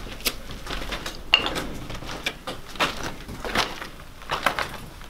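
Footsteps on wooden stairs and a debris-strewn floor: irregular knocks, scuffs and crunches of shoes on boards and plaster rubble, with a short squeak about a second and a half in.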